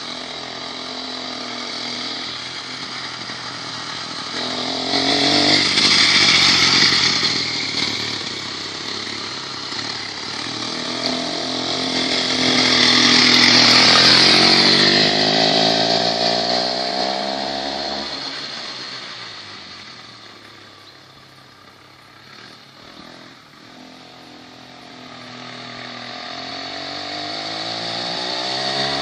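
Homemade mini moped powered by a two-stroke chainsaw engine riding by, its engine note rising and falling with the throttle. It is loudest as it passes close about halfway through, fades as it moves off down the street, then grows again near the end as it comes back.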